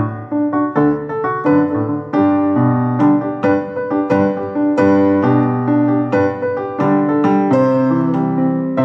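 Piano playing a Guatemalan medley: sustained chords and melody notes over a bass line that steps from note to note, new notes struck steadily a few times a second.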